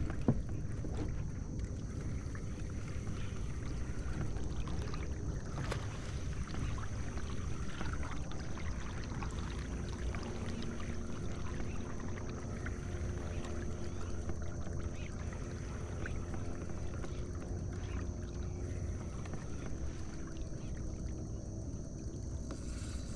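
A kayak under way on calm water gives a steady low rumble throughout, with a faint wavering hum in the middle.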